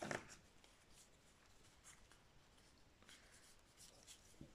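Faint dry rustling and soft scattered clicks of a handful of trading cards being thumbed through and slid against one another.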